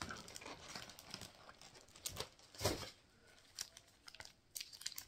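Plastic sleeves and packaging crinkling and rustling as they are handled, in irregular small crackles, with a louder crackle nearly three seconds in.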